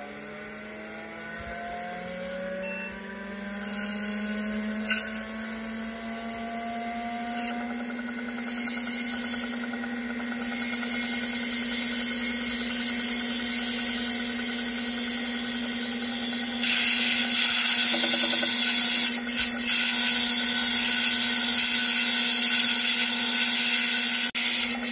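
Opened Seagate ST-225 MFM hard drive running: the spindle motor spins up with rising whines over a steady hum. A harsh scraping noise then builds and stays loud from about ten seconds in, the sound of the damaged heads rubbing on the platters.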